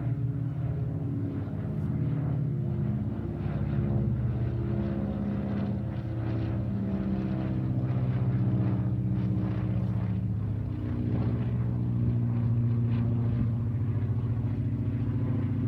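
Twin-engine propeller aircraft flying overhead, its engines running in a steady drone made of several tones that drift slightly against one another as it passes.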